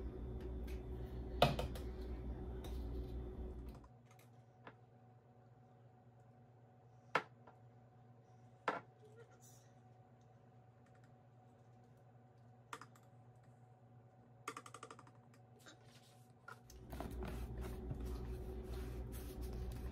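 Scattered light clicks and taps of utensils and containers being handled while measuring ingredients, with a brief rattle near the end, over a low steady hum that drops away for most of the time.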